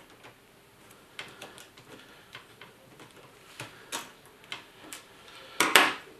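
Scattered small clicks and taps of a screwdriver and tiny laptop screws being handled while the screen panel is unscrewed, with one louder, longer scraping rustle near the end.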